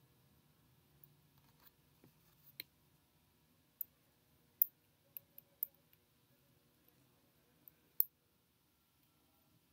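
Small plastic and metal parts clicking and ticking as they are handled and fitted together by hand: about ten short, sharp clicks at irregular intervals, the loudest about halfway through and near the end.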